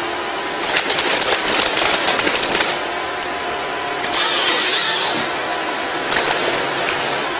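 Motorised tree-cutting saw running, with louder surges of cutting noise: a crackly spell from about a second in lasting nearly two seconds, and another surge about four seconds in.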